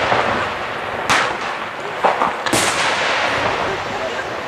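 Aerial firework shells bursting: three sharp bangs, about a second in, around two seconds and half a second later, over the continuous echoing noise of the display.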